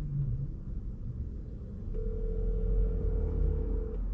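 Phone ringback tone from an outgoing call on speaker: one steady ring about two seconds long, starting about halfway through, over a low steady rumble.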